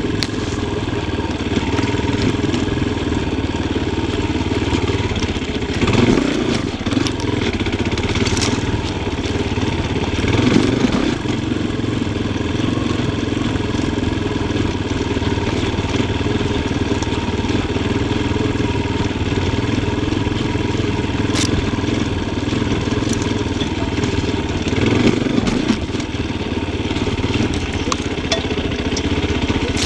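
Yamaha Tricker XG250's single-cylinder four-stroke engine running steadily as the trail bike is ridden. There are brief louder swells about six seconds in, twice between eight and eleven seconds, and again near twenty-five seconds.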